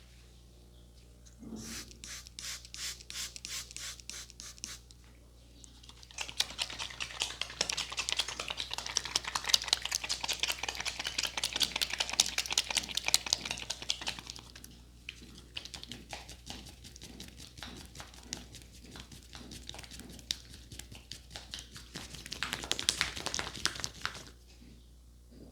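A barber's hands striking rapidly in a percussive head massage, many light slaps or taps a second. There is a short pause a few seconds in, then a faster, louder run that eases off and picks up again before stopping near the end.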